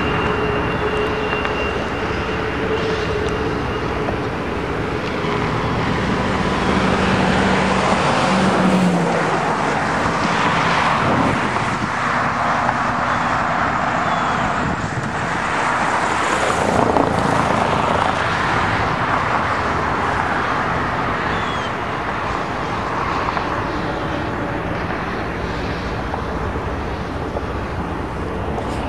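Double-stack intermodal freight train cars rolling along the track: a steady rush and rumble of wheels on rail that swells a little through the middle and eases off toward the end.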